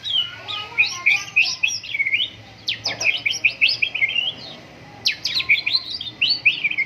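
White-rumped shama singing vigorously: rapid runs of clear whistled notes and fast sweeping phrases, with a short pause a little past halfway before the song starts again.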